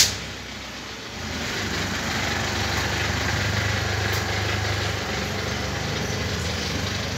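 A sharp click at the very start, then a motor vehicle's engine running steadily, with a low hum that holds even.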